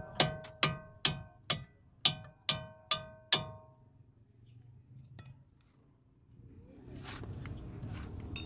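Steel hammer blows on a car wheel hub while a wheel stud is knocked through: eight sharp, ringing metallic strikes about two a second, stopping about three and a half seconds in. Faint handling scrapes and small metal clicks follow near the end.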